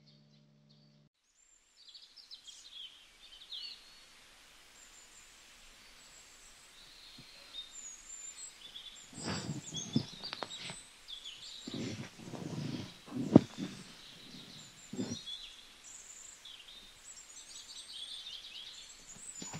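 Small birds chirping and twittering over a soft outdoor hiss. From about nine to fifteen seconds in come several louder rustles and knocks, the sharpest about thirteen seconds in, with one more near the end.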